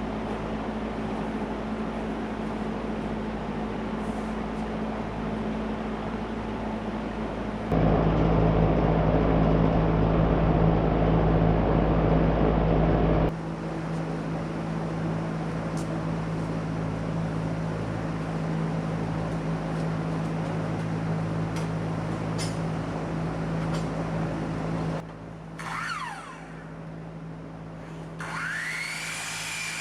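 A steady low machine hum, much louder for about five seconds in the middle, and near the end a motor whining up in pitch and then holding steady.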